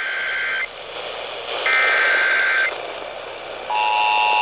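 Emergency Alert System tones over AM radio: two bursts of the warbling digital header data, the second about a second long, then the steady two-tone attention signal starts near the end. These tones open the broadcast of a severe thunderstorm warning.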